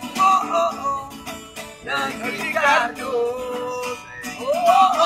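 A man singing to his own acoustic guitar. He holds and slides long notes over the guitar's rhythm.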